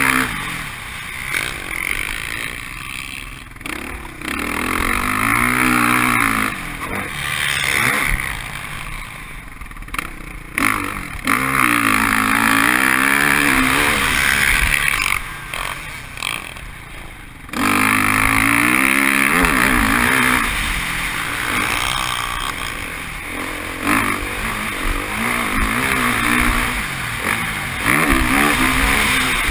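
Motocross bike engine revving hard as it is ridden around a dirt track, its pitch climbing and dropping again and again with throttle and gear changes. Its level drops, then comes back suddenly with a burst of throttle about two thirds of the way through.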